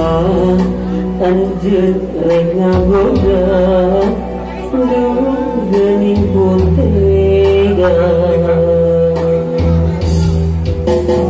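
A man singing a Sundanese song into a microphone, his voice amplified over backing music with a steady bass line and drum beats. The voice holds long, wavering notes.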